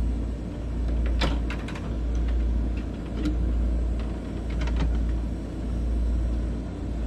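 Wind buffeting the microphone, a low rumble that swells and fades every second or two, with a few light clicks and knocks as the helicopter's upper cowling is unlatched and swung open.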